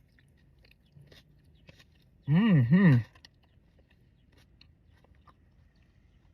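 A man chewing a bite of crunch wrap, with faint crunching and mouth clicks. About two seconds in he gives a loud two-note 'mm-mm' hum of enjoyment.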